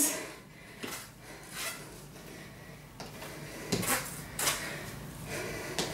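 Trainers landing and scuffing on a wooden floor during lunges and kicks: several soft thuds, roughly one a second.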